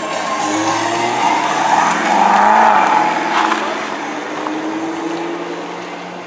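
Dodge Challenger's engine accelerating hard away, its pitch climbing for about two seconds and then easing off as the car pulls into the distance.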